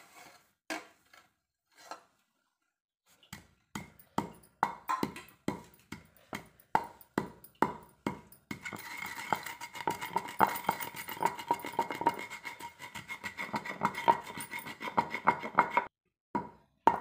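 Wooden pestle pounding cumin seeds and salt in a stone mortar: a few light knocks at first, then a steady run of dull thuds, about two to three strokes a second.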